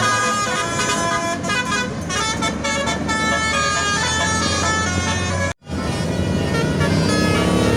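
Basuri telolet musical horn on a bus playing a quick melody of changing notes over the bus engine's running hum. The sound cuts out briefly about five and a half seconds in.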